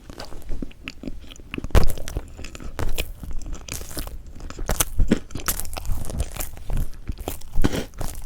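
Close-miked mouth sounds of a person eating strawberry chocolate cream cake: irregular crunchy bites, chewing and wet smacks, a new cluster every half second or so.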